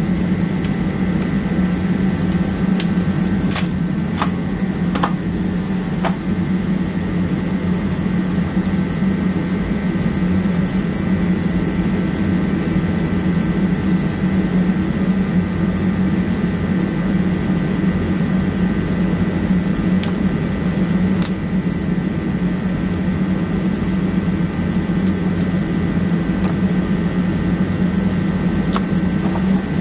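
Garage space heater running with a steady hum and fan noise. A few light clicks and taps come through now and then, a handful in the first six seconds and one later on.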